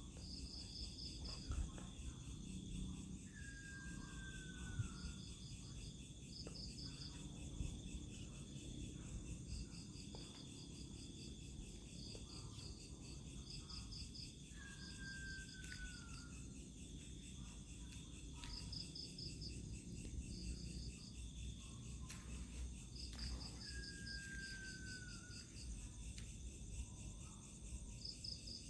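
Night insect chorus: crickets chirping in short pulsed trills over a steady high-pitched insect drone. Three times, about ten seconds apart, a short falling whistle cuts through.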